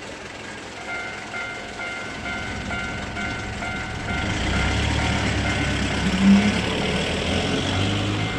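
Railway level-crossing warning bell, an electronic chime repeating about twice a second, starting about a second in. From about four seconds in, the noise of an approaching Keio Inokashira Line train builds under it. A brief low tone about six seconds in is the loudest moment.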